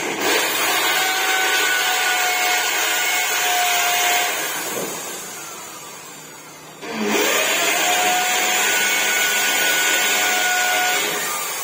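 Corded electric drill drilling holes for the wall angle, with a steady motor whine. It runs for about four seconds and winds down, then spins up again with a rising whine about seven seconds in and runs for about four seconds more.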